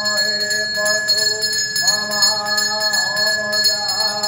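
Temple bells ringing steadily, with a voice chanting over them in long held notes that rise at the start of each phrase.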